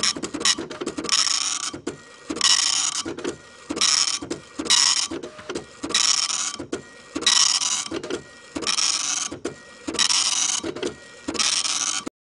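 Dot-matrix printer printing line after line: about nine rasping passes with short pauses between them, cutting off suddenly near the end.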